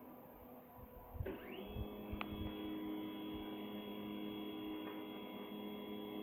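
Stepper motors of a homemade Arduino CNC plotter run by GRBL, ramping up with a rising whine about a second in, then moving at constant speed with a steady whine. One light click about two seconds in.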